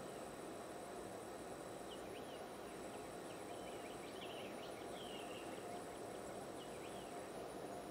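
Faint woodland ambience: a steady high-pitched insect buzz, with scattered short bird chirps from about two to seven seconds in.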